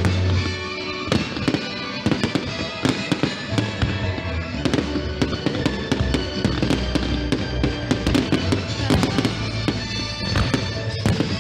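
Fireworks going off in a rapid string of sharp bangs and crackles, over music with a steady low bass.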